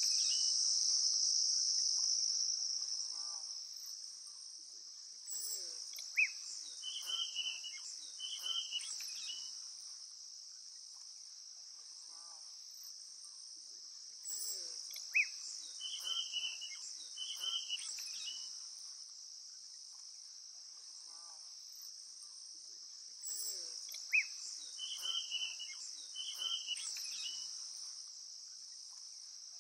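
A steady, high-pitched chorus of insects, with a short call repeating about every nine seconds, three times in all. Each call is a quick rising note followed by a few brief higher notes, like a bird.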